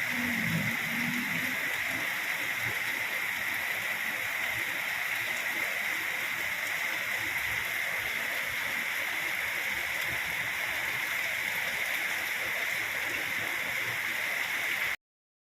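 Steady rain falling, a continuous even hiss of water, which cuts off suddenly near the end.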